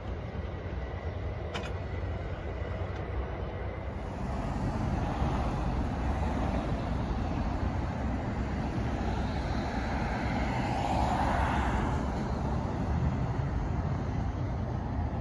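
An NJ Transit ALP-45DP diesel locomotive and its passenger train running off into the distance, fairly quiet. Then steady road traffic, with a vehicle passing by, rising and falling, about ten to twelve seconds in.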